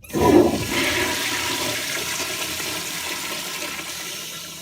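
Public restroom toilet flushing: a sudden loud rush of water that starts abruptly, runs on steadily, and slowly fades toward the end.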